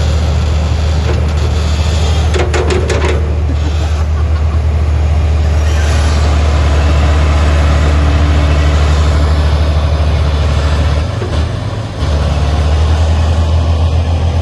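Heavy diesel engine of earthmoving machinery running steadily under load, with a brief run of metallic clattering knocks about two to three seconds in. The engine note dips for a moment near the end, then returns.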